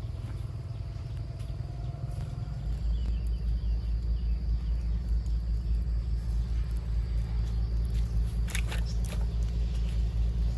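Low, pulsing rumble that gets louder about two and a half seconds in, with one sharp crack about eight and a half seconds in.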